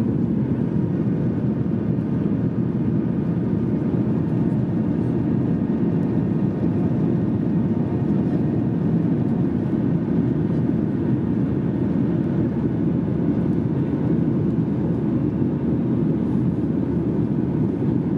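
Steady cabin noise of a Ryanair Boeing 737 in flight: the even rumble of its jet engines and the airflow over the fuselage, heard from a window seat over the wing.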